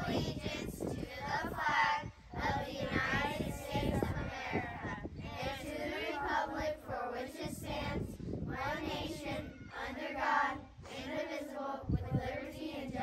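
A group of children reciting the Pledge of Allegiance together in unison.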